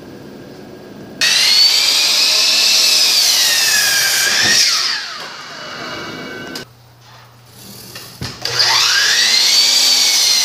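Sliding compound miter saw started and run through a yellow cedar plank, its whine falling in pitch during the cut before the blade spins down. It starts up again about eight and a half seconds in for the next cut.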